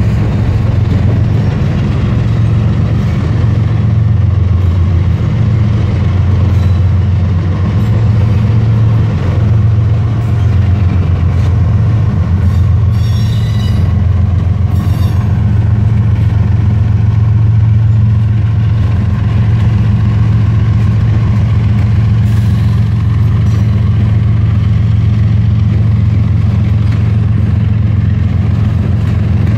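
Freight train of autorack cars rolling past with a steady low drone of wheels and diesel engine, and a CSX diesel locomotive running mid-train as distributed power going by about halfway through, with brief clatter of the cars.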